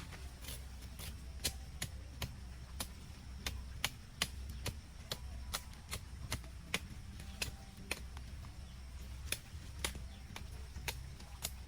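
Repeated sharp chopping or knocking strikes, about two a second and unevenly spaced, as of a tool hitting wood.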